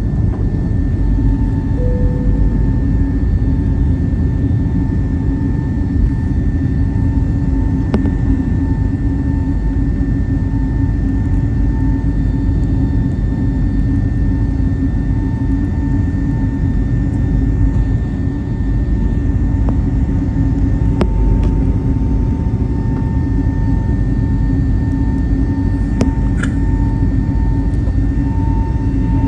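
Jet airliner cabin noise: the engines and airflow run loud and steady, with a constant hum and a higher whine through it, and a few faint ticks.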